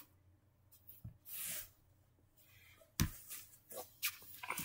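Quiet room with a brief soft rustle, then a single thump about three seconds in, followed by scattered small knocks and rustling as a person moves about right next to the microphone.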